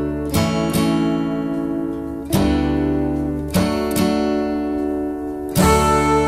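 Acoustic guitar strumming slow chords, a new chord about every second or two, each left to ring out: the instrumental intro of a ballad before the singing comes in.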